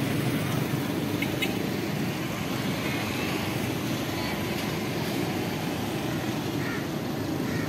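Steady low rumble of street traffic, with no clear rhythm and only a few faint ticks.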